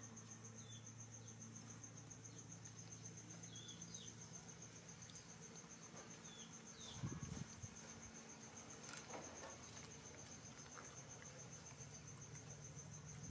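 Insects chirring steadily in a high, rapidly pulsing trill, with a few faint short chirps and a brief low thud about seven seconds in.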